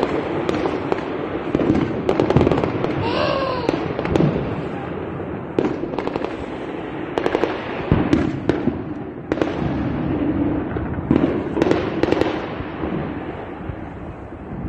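Sharp bangs going off irregularly over a busy city background, some in quick clusters. A voice calls out with a falling pitch about three seconds in.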